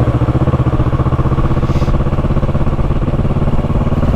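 Motorcycle engine running steadily, its pitch holding level with an even throb.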